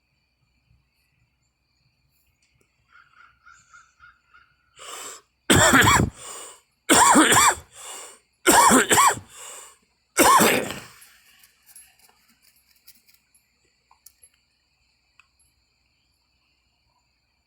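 A person's coughing fit: about four hard coughs roughly a second and a half apart, each followed by a weaker cough, starting about five seconds in and ending around eleven seconds.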